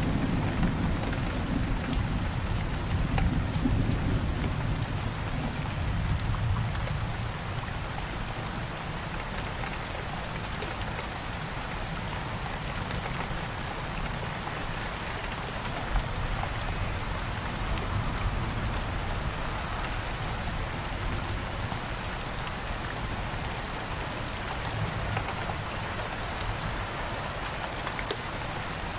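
Heavy rain falling steadily on window glass, an even hiss of drops. A low rumble of thunder dies away over the first several seconds.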